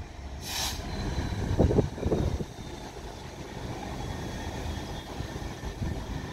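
GB Railfreight Class 66 diesel locomotive, with its two-stroke V12 engine, running away down the line, its rumble dying down as it goes. A brief hiss comes about half a second in and a few knocks follow around two seconds in.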